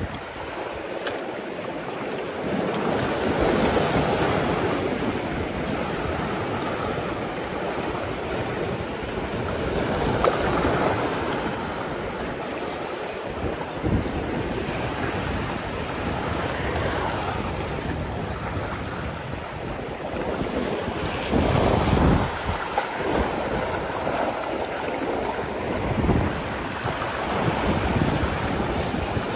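Sea waves breaking and washing against a rocky shore, with wind buffeting the microphone. The surf surges louder several times.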